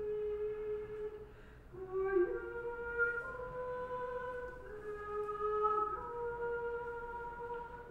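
A slow solo melody of long held notes in a soft, flute-like tone, one note at a time, each changing every second or two.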